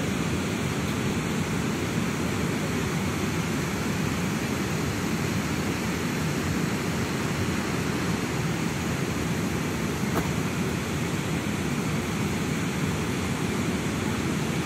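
Steady rushing of river water pouring over a dam's weir and churning below it, an even roar with no let-up.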